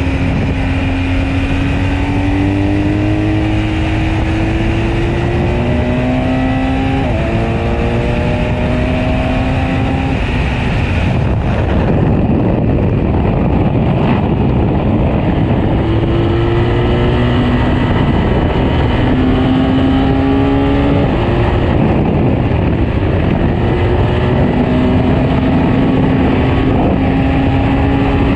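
BMW R 1250 GS Adventure's boxer-twin engine under way, its note rising with the throttle and dropping sharply at an upshift about seven seconds in, then climbing and falling again through later gear changes, over constant wind and road rush.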